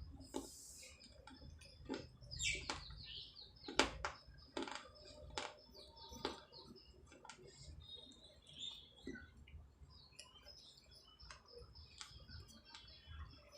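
Baked clay being bitten and chewed: sharp cracks at irregular intervals, with light gritty crunching between them.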